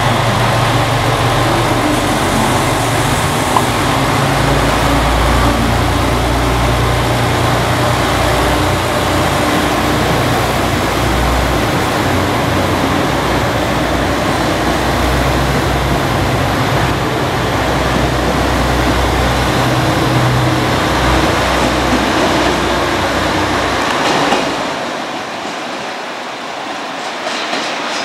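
Diesel limited express railcar's engines running with a steady low drone as the train pulls out and passes, with rail and wheel noise; about 24 seconds in, the engine drone falls away as it clears.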